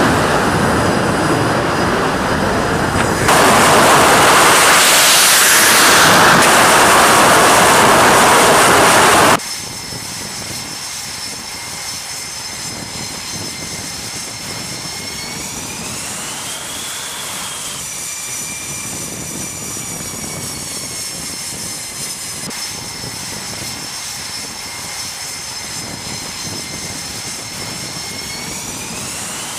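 Carrier jet aircraft engines running at high power, a loud even roar that gets louder about three seconds in and cuts off abruptly after about nine seconds. A quieter jet engine whine follows, its high tones bending up and down together twice as the engine speed changes.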